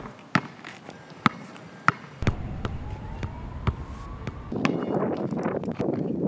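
A basketball being dribbled in uneven, sharp bounces, with a faint siren-like tone slowly rising underneath. About four and a half seconds in, a steady rushing noise comes up.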